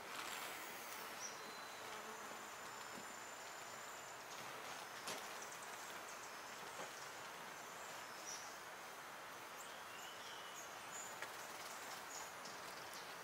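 Steady insect hum, with faint short bird chirps here and there and a few small clicks.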